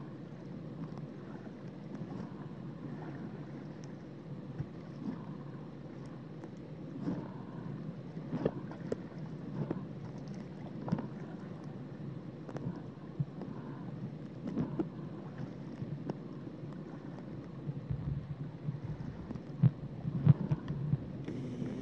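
Underwater ambience at the water's edge: a steady low rumble of water, with scattered faint clicks and taps that come more often near the end.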